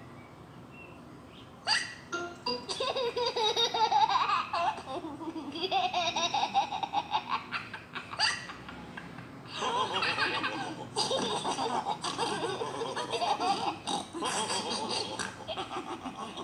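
Several cartoon voices laughing together, with music underneath. The laughter starts about two seconds in.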